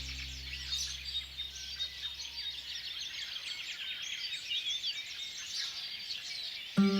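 Several wild birds chirping and singing at once, a busy chorus of quick high calls. Soft background music fades out in the first seconds, and a new piece of music starts suddenly near the end.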